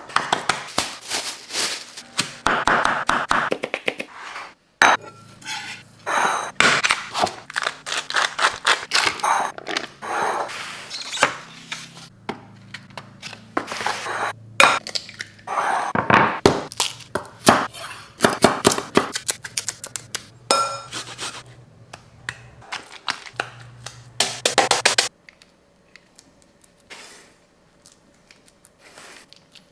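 Close-up food-prep sounds: a fast run of clicks, clinks, knocks and wet squelches as ground meat is kneaded by hand in a glass bowl, glass bowls are handled and an egg is cracked. About 25 seconds in they give way to faint soft touches as the patties are pressed.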